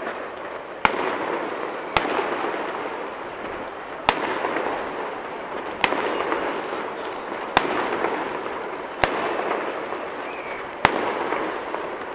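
Aerial fireworks shells bursting, about seven sharp bangs one every second and a half to two seconds, each trailing off over a second or so.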